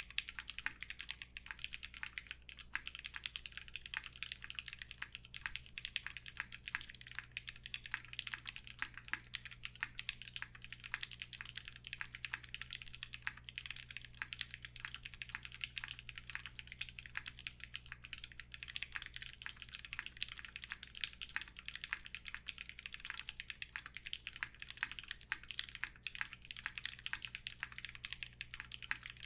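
Continuous fast typing on a custom mechanical keyboard (Mekanisk Klippe S) with lubed linear Alpaca switches on 67.5 g springs, a polycarbonate plate, foam dampening and GMK keycaps: a dense stream of muted keystroke clacks, several a second, steady throughout.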